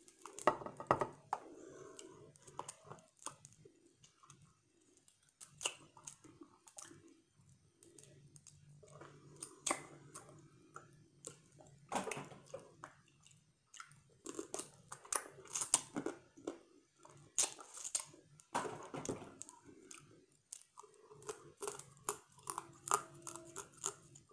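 Close-up eating sounds: chewing and lip-smacking on boiled blue crab, with many sharp cracks and clicks as the crab's shell is pulled apart by hand.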